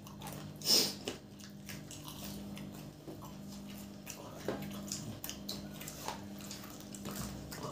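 Close-up biting and chewing of fried samosas: scattered small crunches and wet mouth sounds, with one louder crunchy bite about a second in. A faint steady low hum runs underneath.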